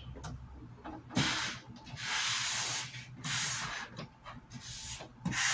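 Hand rubbing strokes across the face of a sign panel on a worktable: several separate scrubbing passes, each about half a second to a second long, with short pauses between them.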